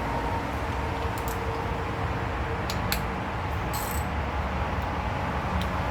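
Light metallic clinks and a short ring of engine parts and hand tools being handled, a few scattered strikes over a steady background hum.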